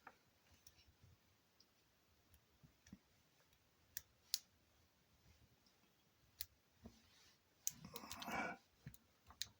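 Faint, scattered metal clicks of lock-picking tools being swapped and worked into a cheap lock: single sharp clicks every second or two, with a short cluster of handling noise about eight seconds in.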